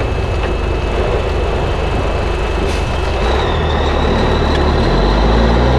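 Diesel engine and road noise inside the cab of a 1984 Peterbilt cabover truck under way. A faint high whine comes in about three seconds in, and the engine note climbs near the end as it pulls harder.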